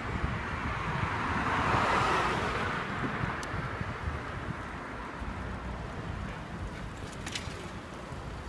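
Wind rumbling on the microphone while riding a bicycle along a city street, with a car passing that swells up and fades away about two seconds in.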